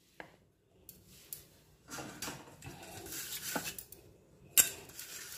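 Kitchen handling sounds: light clinks and soft scraping of containers and utensils on a counter, ending in one sharp click a little over four and a half seconds in, the loudest sound here.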